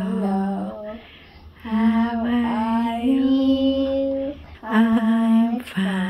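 Young child singing a simple children's song in short phrases of held notes, with brief breaks between phrases.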